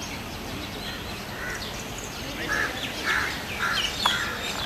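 Birds calling outdoors: a run of short, repeated calls about twice a second in the second half, with thin higher chirps above them.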